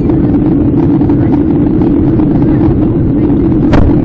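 A loud, steady rumbling noise, like wind or an engine on the microphone, cut through near the end by a single sharp crack: a close lightning strike.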